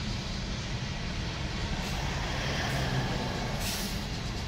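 Freight train rolling past, heard from inside a car: a steady low rumble of the passing wagons, with short hissing bursts about two, three and four seconds in.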